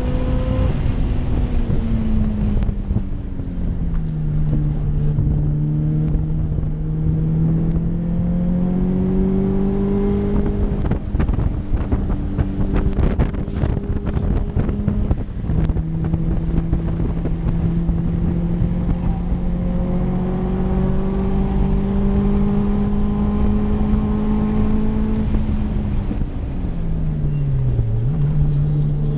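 Subaru WRX wagon's turbocharged EJ207 flat-four engine running at a steady cruise. Its note falls in the first few seconds, then near the end sags and picks back up as the revs change. A few light clicks about halfway through.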